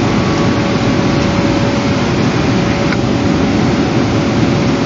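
Steady loud rumbling rush of wind on an outdoor nest camera's microphone, with a constant mid-pitched electrical hum and one faint click about three seconds in. No woodpecker tapping stands out.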